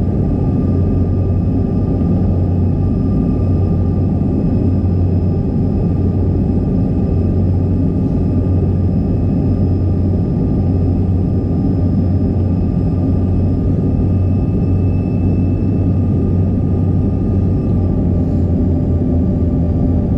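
Steady in-flight cabin noise of a CRJ200 regional jet: a deep, even rumble of airflow and its rear-mounted GE CF34 turbofans, with a faint steady whine above it.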